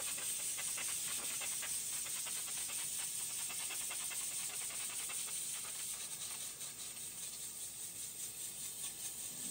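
Steady high hiss of a spray jet blowing through the cooling core of a Caterpillar 950F loader's radiator to clean it out, with a fast fine flutter.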